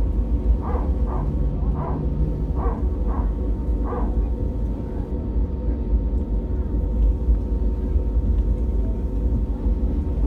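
Airliner's jet engines running as it taxis toward the runway: a steady low rumble with a constant hum. Near the start, about eight short sharp calls come roughly two a second, then stop about four seconds in.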